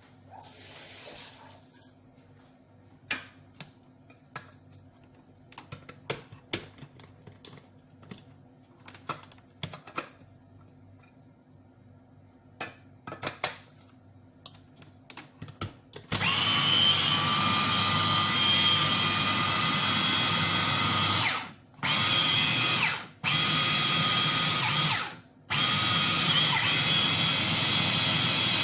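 Scattered light clicks and knocks, then about halfway through an electric blender starts and runs steadily, grinding vegetables with a little water. It cuts out briefly three times and restarts each time.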